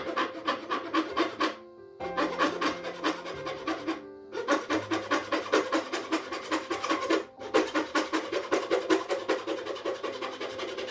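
Quick, rhythmic scraping strokes on wood, several a second, stopping briefly three times, over background piano music.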